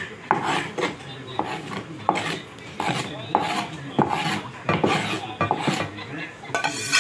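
Knife blade scraping chopped herbs across a cutting board in a run of short strokes, a little under two a second, clearing the board.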